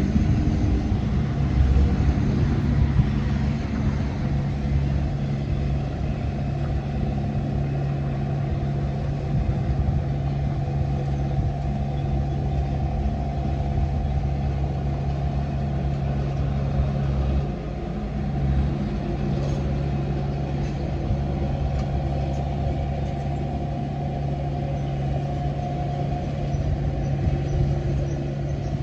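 Komatsu D31P bulldozer's diesel engine running steadily, with a brief dip in its sound a little past halfway.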